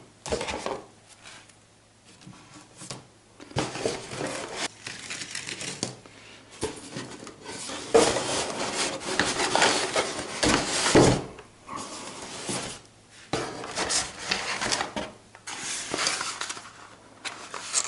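Drone kit packaging and parts being handled and unpacked: irregular rustling and rubbing with scattered knocks and clatter.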